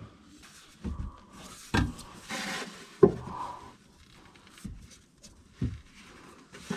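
A rubber exhaust hanger being worked onto the metal hanger rod of a titanium cat-back exhaust: rubbing and scraping with several short knocks, the loudest about three seconds in.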